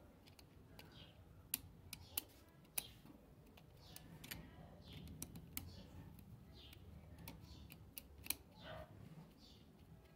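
Screwdriver working the terminal screws of a plastic three-gang light-switch plate: scattered sharp clicks and ticks of the metal tip against the screw heads and plastic, irregular and a second or so apart.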